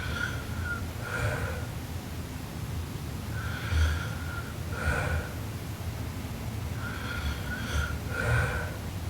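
A sleeping person snoring, about three breaths roughly three and a half seconds apart. Each breath is a held whistling tone followed by a short rough burst.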